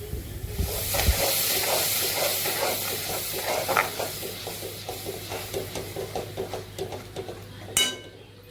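Food sizzling in hot oil in a cooking pan: a hiss flares up about a second in and slowly dies down under a run of spluttering pops. Near the end comes a single ringing metal clink, like a spoon against the pan.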